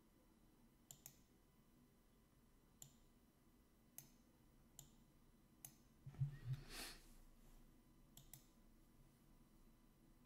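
Near silence with faint computer mouse clicks, about eight of them scattered through, some in quick pairs, and one short soft noise a little past the middle.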